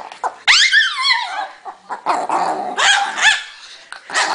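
Chihuahua growling and yapping in bursts, with a high cry that falls steeply in pitch about half a second in.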